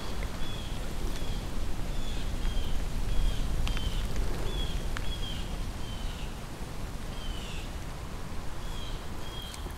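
A small bird calling in short, sharp chirps, each a quick downward slur, repeated about twice a second, over a steady low rumble of wind or microphone noise.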